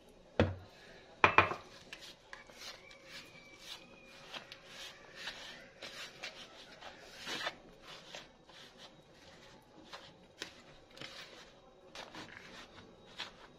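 Two sharp knocks on a bowl, then a run of short scraping and rubbing sounds as ghee is worked into the flour mixture for tortilla dough.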